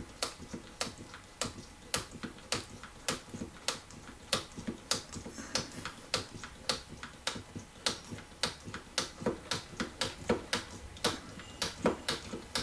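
Oil priming pump screwed into the bleed plug of a POP Avdel ProSet XT3 rivet tool, clicking sharply about two or three times a second as it is pumped. The strokes push oil into the tool's hydraulic chamber to prime it.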